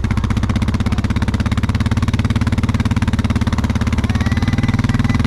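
A vehicle engine running close by at a steady, even idle. Its low, fast pulsing shifts slightly near the end.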